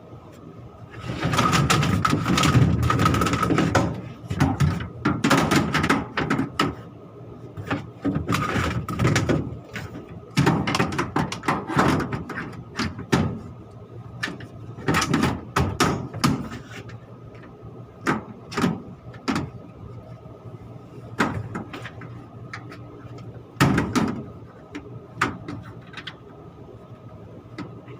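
Air handling unit parts being handled and refitted: irregular metallic knocks, bangs and scraping, busiest in the first few seconds, over a steady machine hum.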